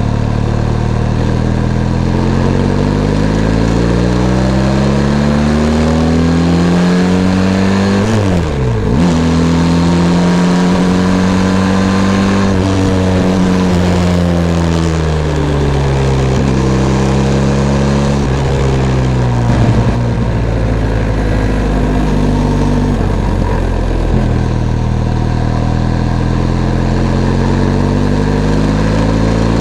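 Benelli TRK 502 X motorcycle's parallel-twin engine running while riding. The revs rise and fall repeatedly through gear changes, with a quick drop and pick-up about eight seconds in.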